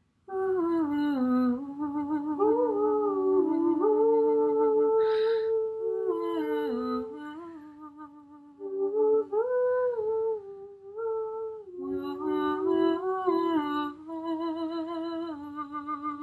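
Two women's voices singing an unaccompanied, wordless improvised melody together, two lines weaving around each other in sustained notes with vibrato.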